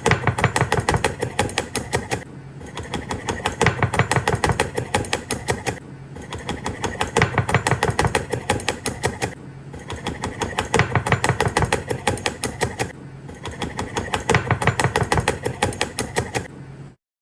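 Knife chopping rapidly on a cutting board, a fast run of sharp strikes several times a second, coming in runs of a few seconds with brief softer pauses between, then stopping abruptly near the end.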